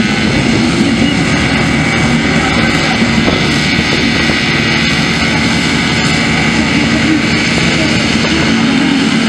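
A full field of MX1 motocross bikes running together on the start line, a loud, steady mass of engine noise. The riders are holding their engines ready in the last seconds before the start gate drops.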